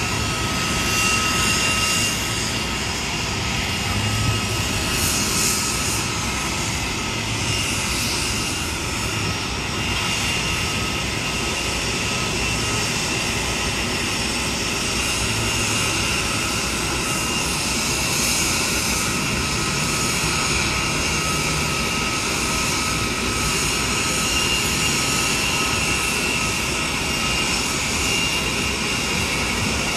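Jet aircraft engine noise, running steadily with a constant high whine over an even hiss.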